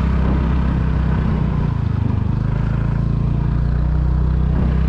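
Motorcycle engine running steadily as it is ridden, over a continuous rushing noise; the engine note shifts briefly about two seconds in.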